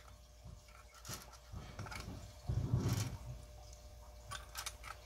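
Faint clicks and light handling of a Lee hand priming tool as a primer is pressed into a .300 Winchester Magnum brass case, with a short, louder low sound about halfway through.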